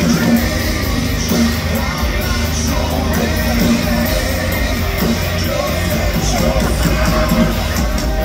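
Live heavy metal band playing loud, with sung and shouted vocals over the full band.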